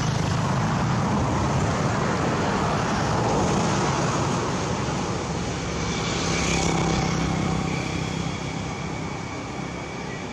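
Motor vehicle traffic: a steady engine hum with road noise that swells twice and fades near the end.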